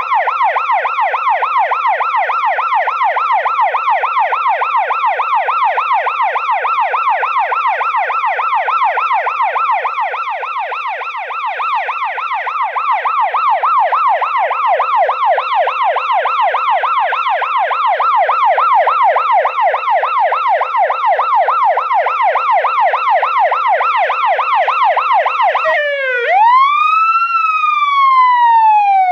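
Police car siren sounding a fast, repeating up-and-down yelp. Near the end it switches to the slow rising and falling wail.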